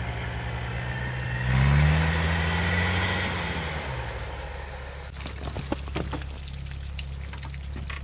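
An off-road 4x4's engine revs up about a second and a half in as it pulls a stuck vehicle out on a tow strap, holds, then drops back about four seconds in. From about five seconds in, scattered ticks and drips sound over a low engine idle.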